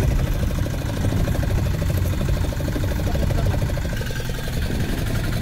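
Fishing boat's diesel engine idling steadily, with a fast even pulse.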